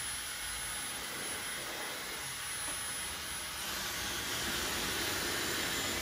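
Dyson Supersonic hair dryer running, a steady rush of air with a faint high whine. About three and a half seconds in the whine drops away and the rush of air grows louder and brighter.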